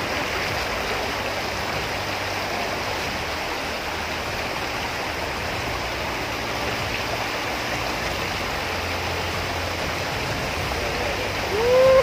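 Steady rush of a small jungle waterfall and the shallow rocky stream below it. Right at the end a person's voice gives a short call.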